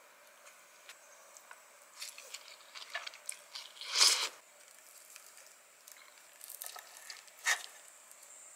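Close-up eating sounds: light clicks of wooden chopsticks against a ceramic plate and soft wet squishing as spicy cold noodles with lettuce are mixed and eaten. One louder noisy burst comes about four seconds in, and a shorter one about a second before the end.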